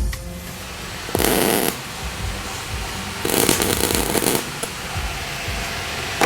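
Two short bursts of arc welding as steel pieces are tacked together: the first lasts about half a second, the second about a second.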